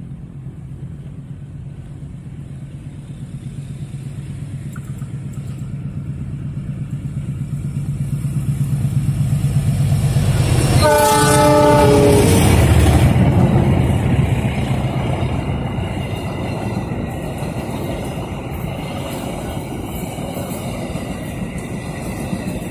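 Passenger train hauled by a diesel-electric locomotive approaching and passing close by. The locomotive's engine drone grows louder, and its horn sounds once for about a second roughly eleven seconds in. The drone then drops in pitch as the locomotive passes, and the coaches follow, rolling by with a rhythmic clatter of wheels on rail.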